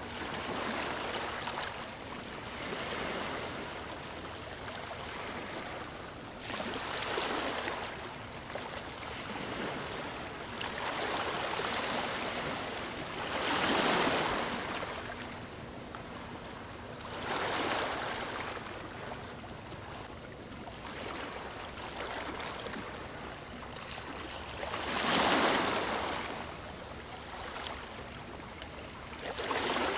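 Ocean waves breaking on a beach: a steady wash of surf with waves crashing at irregular intervals, the two loudest about halfway through and a few seconds before the end.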